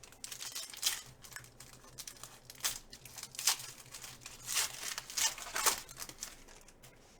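Crinkling and rustling of foil trading-card pack wrappers and cards being handled, in a run of short irregular scrapes, several louder ones about a second apart.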